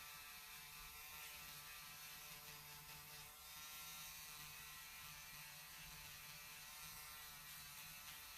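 Faint, steady whir of a small electric motor running without change, with a whine of several steady tones over a low hum.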